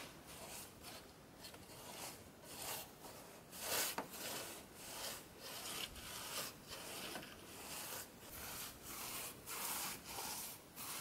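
Paintbrush scrubbing paint onto rough-sawn wooden wall planks, one scratchy stroke after another, about one to two strokes a second.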